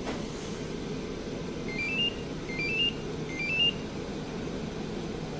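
Magicar Gold8 two-way remote-start remote beeping a short rising run of about four notes, three times in a row, over the steady low hum of the remote-started Samsung SM5's idling engine.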